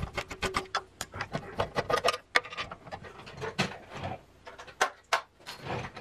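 A regular screwdriver scraping and clicking in three-pointed tamper-proof screws on an oil-filled heater as they are worked loose, with small knocks of handling the heater. The clicks come irregularly throughout.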